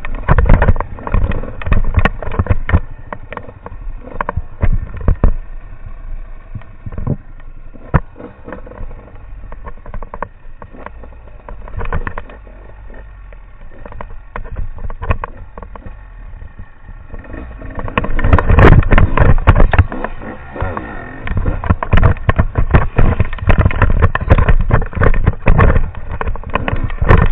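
Enduro motorbike engine running steadily, with many sharp knocks and thuds from riding over rough, broken ground on a descent. It grows louder and busier about two-thirds of the way through.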